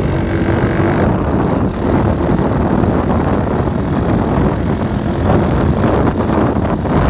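Motorcycle with a loud exhaust running as it is ridden, its engine note mixed with wind rumble on the microphone.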